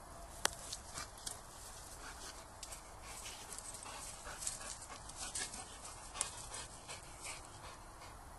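Boxer dog panting in short breathy puffs, busiest from about three to seven seconds in, with two sharp clicks, one about half a second in and one about six seconds in.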